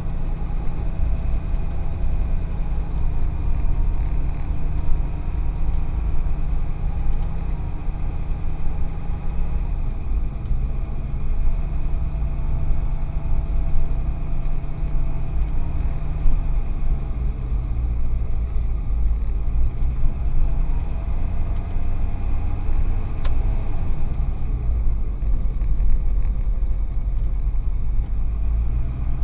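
Tow truck's engine running, heard from inside the cab, its pitch dropping and coming back up a couple of times.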